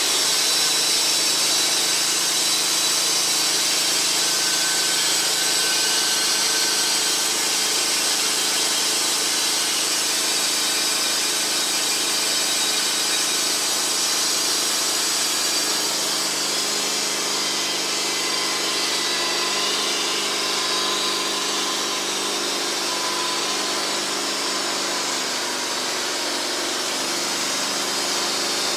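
Wood-Mizer LT15 bandsaw mill cutting steadily through a hard maple log, the blade sawing along the cut over the mill's running motor.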